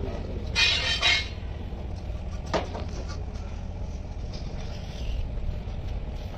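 A steady low mechanical hum, with a short noisy burst about half a second in and a single sharp click about two and a half seconds in.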